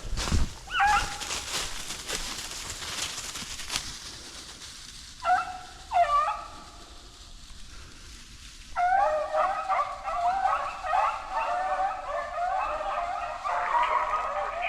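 Deer hounds baying: a lone bay, then two more, then from about nine seconds in several dogs giving tongue together in a continuous chorus, the sound of the pack opening on a jumped deer.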